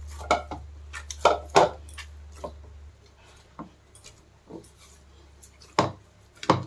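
Hands kneading a stiff wheat-flour dough in a plastic bowl: irregular thumps and knocks as the dough is pressed and punched against the bowl.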